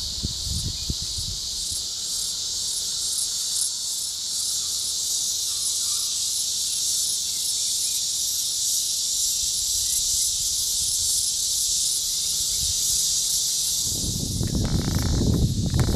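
Insects buzzing steadily in a high, even chorus from the surrounding forest. About two seconds before the end a louder low noise comes in underneath.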